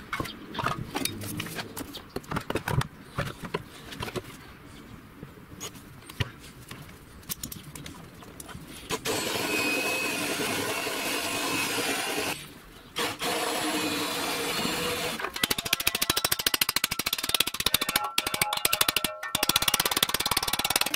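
Clinks and knocks of thin sheet-steel body panels being handled. Then a cordless drill runs in two stretches, drilling into the sheet steel. From about 15 seconds in come quick, rapid hammer blows on a sheet-metal flange clamped in a vise, bending it over.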